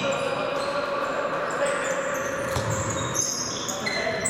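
Futsal play on a sports-hall court: players' shoes squeaking on the floor in many short high squeals, with scattered thuds of the ball being kicked and bounced.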